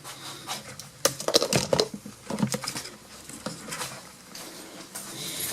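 Irregular sharp clicks, clunks and knocks of hands working on or around the car, coming thick and fast from about a second in and tailing off after about three seconds.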